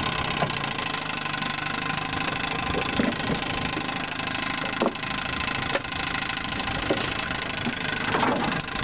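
1961 Johnson 5.5 hp two-cylinder two-stroke outboard motor running steadily under way, freshly rebuilt with new ignition and fuel system.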